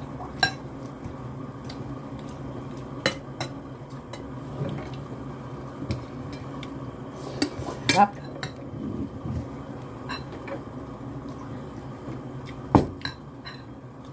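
Metal spoons and forks clinking and scraping against a glass serving bowl: scattered clinks, the loudest about eight seconds in and again near the end, over a steady low hum.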